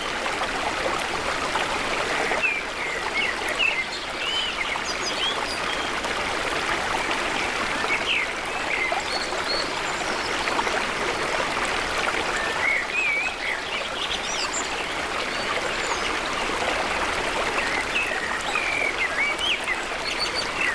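A stream running steadily, with birds chirping now and then.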